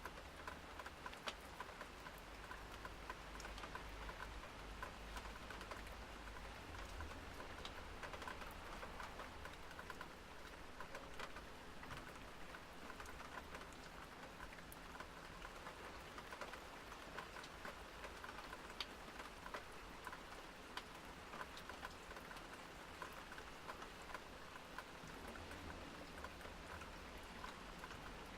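Steady medium-light rain in a city, a constant hiss with individual drops ticking on hard surfaces. A low rumble of distant passing traffic swells early on and again near the end.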